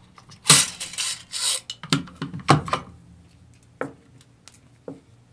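AR-15 rifle parts being handled during disassembly: metal scraping and sliding for the first couple of seconds, then a few separate sharp clicks and knocks.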